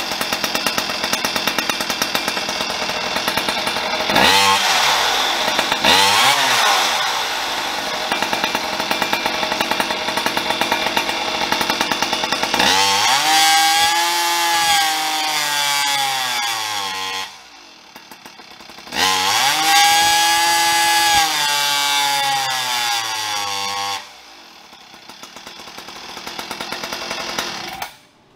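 Farmertec G395XP, a 94 cc two-stroke chainsaw engine with a tuned exhaust pipe, running on a dyno. The revs swing up and down, then come two long wide-open pulls of a few seconds each, with a drop back to idle between them. The engine cuts off near the end.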